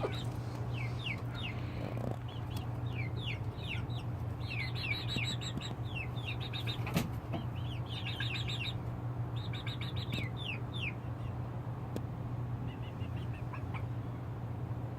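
Chicks peeping: many short, falling high-pitched peeps, some in quick runs, over a steady low hum.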